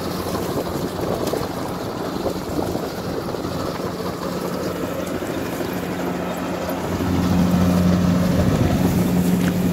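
Kubota DC60 combine harvester's diesel engine running steadily while harvesting in a waterlogged rice paddy, a low hum that grows louder about seven seconds in.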